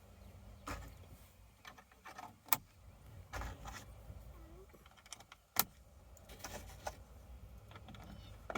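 Sharp plastic clicks, three or four a couple of seconds apart, with light handling noise between them, as knobs are pushed back onto a pickup's climate control panel.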